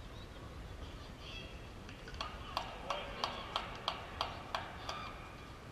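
Rhythmic hand clapping, sharp evenly spaced claps about three a second for roughly three seconds, starting about two seconds in, with faint distant voices.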